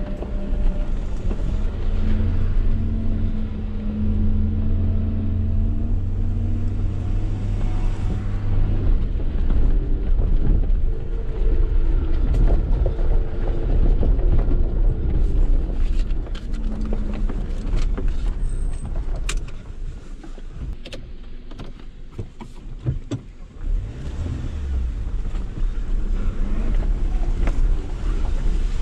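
A Suzuki Jimny's 1.3-litre inline-four engine running at low speed on a rough dirt track, heard from inside the cabin, with a steady hum at first. In the middle stretch, sharp knocks and rattles come as the vehicle jolts over the ruts. About two-thirds of the way through, the engine note drops back for a few seconds.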